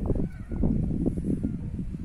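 Wind buffeting the phone's microphone in uneven gusts, a low, blustery rumble.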